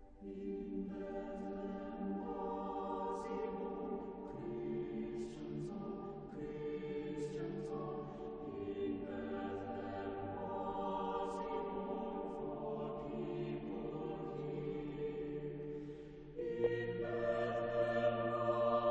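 Background music: a choir singing slow, held phrases in a chant-like style, louder near the end.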